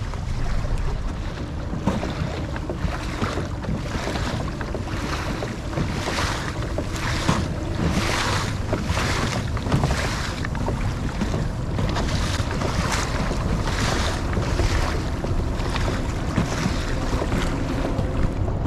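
Wind buffeting the microphone over moving tidal water: a steady low rumble with gusty swishes that come and go about once a second.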